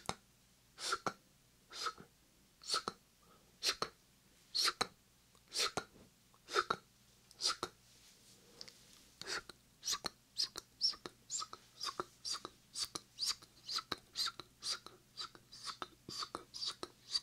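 Whispered 'sk sk' mouth sounds made close to a binaural microphone: short crisp hisses about once a second, quickening to about two a second from the middle on.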